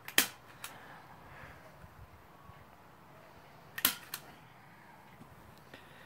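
Two sharp knocks about three and a half seconds apart, each with a fainter click just after, as hands handle the hat-covered pumpkin on the wooden chopping stump.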